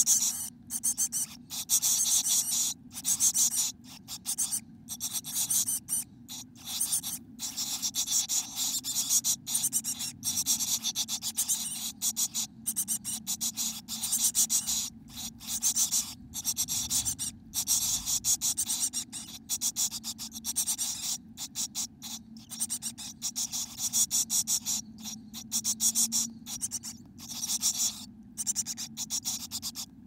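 Scratchy rustling inside a chickadee nest box, high and hissy, cutting in and out many times.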